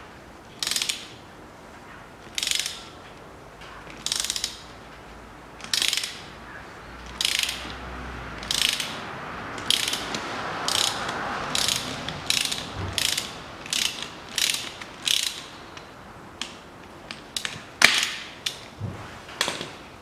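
Ratchet wrench being swung back and forth on a bolt, each stroke giving a short burst of ratchet clicking. The bursts come about once every second and a half at first, then about twice as fast, with one sharper, louder click near the end.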